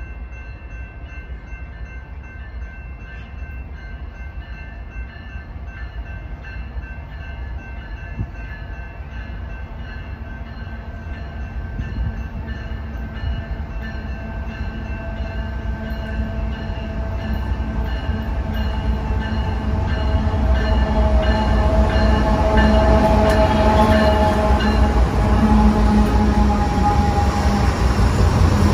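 BNSF diesel locomotives of an intermodal freight train approaching and passing at speed, the engine rumble and rail noise growing steadily louder until the lead unit goes by near the end. A horn sounds in the last several seconds as it nears.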